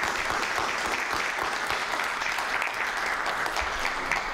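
A small audience applauding: many hands clapping steadily, dying away near the end.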